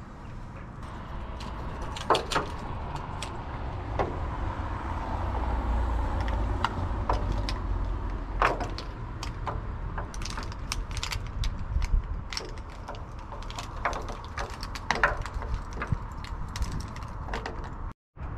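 Wind rumbling on the microphone, with scattered sharp knocks and clinks from a person climbing and working on a windmill sail's lattice.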